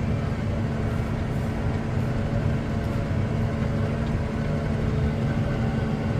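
Tractor engine running steadily at a constant speed, a low drone with an even hum.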